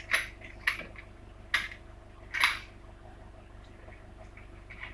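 Tripod and mount adapter parts clicking and clacking as they are handled and fitted together: four sharp knocks in the first two and a half seconds, then quiet.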